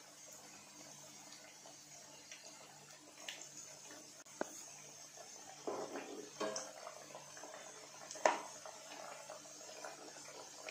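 Donut rings deep-frying in hot oil, a faint steady sizzle, with a slotted metal skimmer clinking against the pan as the donuts are turned: two sharp clinks about four seconds apart, the second the loudest, and some scraping in between.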